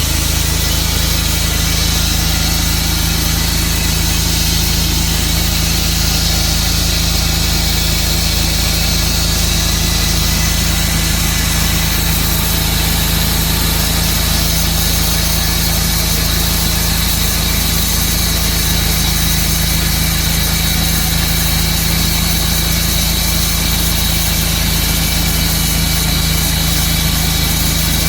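Sawmill engine running steadily at a constant, unchanging speed.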